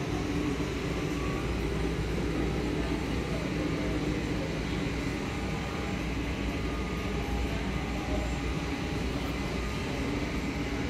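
Steady low rumble of large-store background noise, with no single sound standing out.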